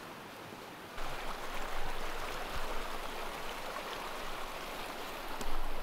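A fast-running stream rushing over rocks, cutting in suddenly about a second in after a quieter steady hiss. A few short knocks sit over it, the loudest near the end.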